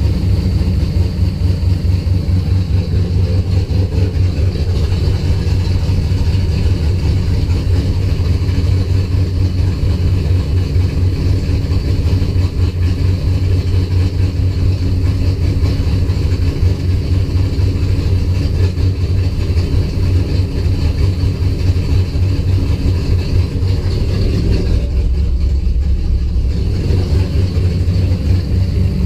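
Car engine running at a rough idle, with an uneven pulsing beat; about three-quarters of the way through it briefly goes duller before picking back up.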